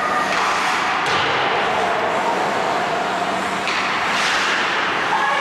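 Ice hockey play: skate blades scraping and carving on the ice, with a few sharp knocks from sticks and puck.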